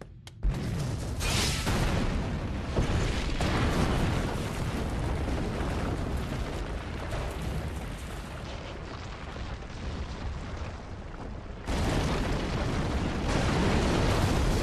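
Loud, continuous explosion-like rumbling from an anime battle soundtrack. It starts suddenly about half a second in, eases a little in the middle, and jumps louder again about twelve seconds in.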